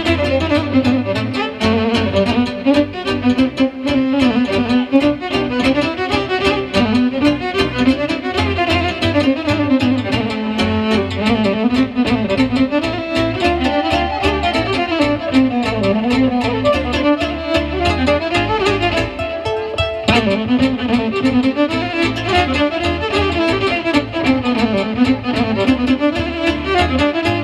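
Instrumental Romanian folk music with no singing: a violin-led melody over a steady, fast beat.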